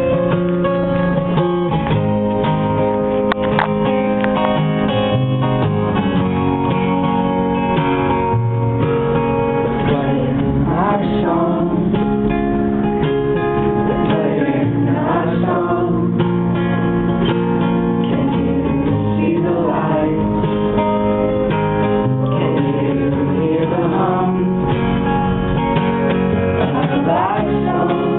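Unplugged live band performance: strummed acoustic guitar with a singing voice, loud and steady.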